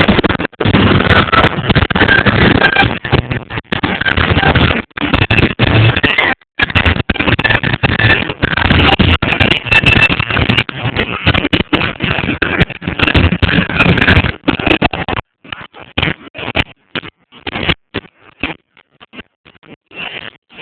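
Fireworks display with music, loud and distorted, with short dropouts throughout; after about fifteen seconds the sound breaks up into choppy, stuttering fragments.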